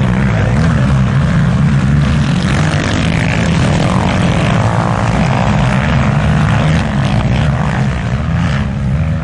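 Engines of a pack of racing quad bikes (ATVs) droning together at high revs, loud and steady, with one engine's pitch rising briefly about four seconds in.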